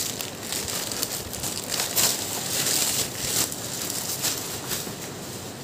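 Black plastic courier bag crinkling and crackling as it is torn open and the boxed laptop cooler is pulled out of it, in a run of short, sharp rustles.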